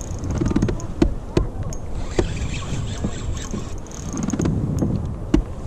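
Sit-on-top kayak being paddled on the sea: water swishing in a few surges with the paddle strokes, and several sharp knocks, the clearest about a second in and near the end.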